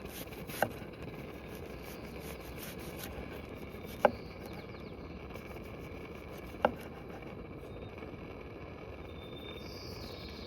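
Three sharp, short clicks about three seconds apart, each with a brief ring, over a steady background hiss.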